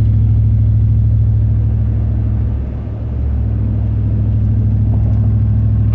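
Steady low drone of a vehicle's engine and road noise heard from inside the cabin while driving, easing briefly a little before the middle before settling back.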